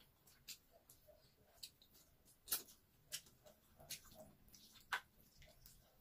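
Close-miked eating sounds of a mouthful of creamy carbonara pasta being chewed: soft wet chewing and mouth smacks, with sharp clicks about once a second, the loudest about two and a half seconds in.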